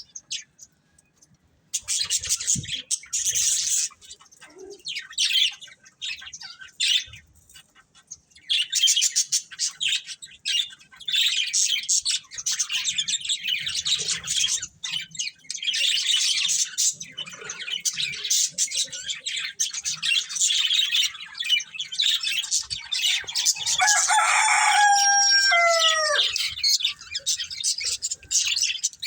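Pet budgerigars chattering and chirping: a dense stream of fast, high chirps and warbles after a brief lull at the start. Near the end a longer, lower call slides down in pitch.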